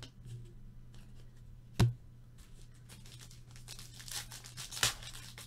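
Sharp tap a little under two seconds in, then the wrapper of a Diamond Kings baseball card pack crinkling and tearing as it is opened by hand.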